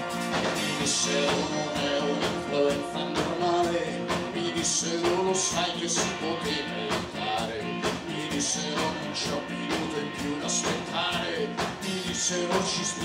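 Live rock band playing a song on stage: drum kit, electric bass, guitar and keyboard, with a steady drum beat.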